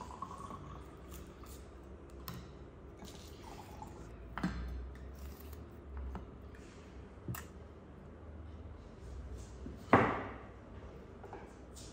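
A drink poured from a bottle into a drinking glass, its pitch rising slightly as the glass fills, stops about a second in. Then come scattered knocks of knives and wooden plates on a dinner table. The sharpest knock, about ten seconds in, rings briefly.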